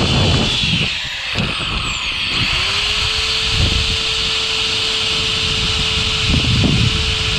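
Power drill boring a hole for a cleat in a canoe hull. The motor stops about a second in, then spins back up after two or three seconds and runs at a steady pitch.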